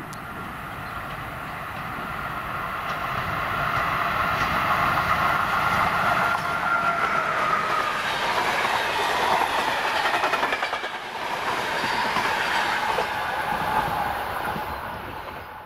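Locomotive-hauled passenger train approaching and passing at speed, its coach wheels clattering rhythmically over the rail joints. It grows louder over the first few seconds and fades near the end as the last coach goes by.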